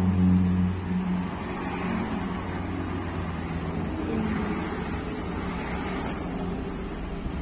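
An engine running with a steady low hum, louder in the first second or so, then settling to a lower, even level.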